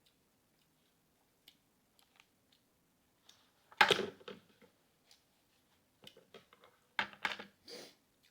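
Eating sounds: scattered soft mouth clicks and smacks, with one loud burst about four seconds in and a cluster of loud ones near the end.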